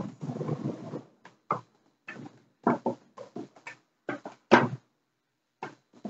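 A rustle, then a run of separate knocks and thuds from someone stepping out onto a wooden deck and handling an air hose and a fan heater. The loudest thud comes about four and a half seconds in.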